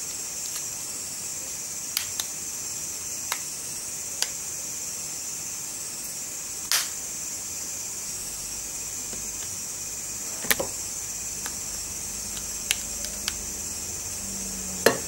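Plastic back cover of a Samsung A20 phone being pressed shut along its edges: about ten small, irregular clicks as the cover's clips snap into place, the loudest near the end.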